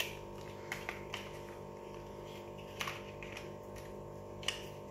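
Large plastic toy building bricks being pressed and clicked together by hand: about five sharp plastic clicks, spaced unevenly, over a steady low hum.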